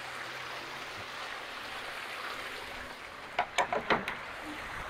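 Steady low hiss, with a quick run of about five sharp metallic clicks a little past halfway through as an adjustable wrench is worked on a bolt at the top of a wooden post.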